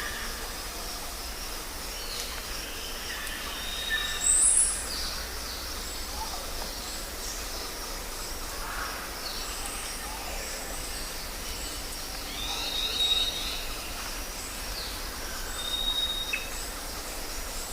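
Jungle ambience: many birds calling and chirping over a steady background hiss and low rumble. The loudest sound is one high call about four seconds in, and a steady whistled note recurs a few times.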